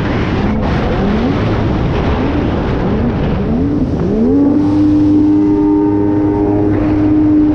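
Jet ski engine revving in several short rising blips, then climbing at about four seconds to a high, steady pitch that holds to the end, over a rushing noise.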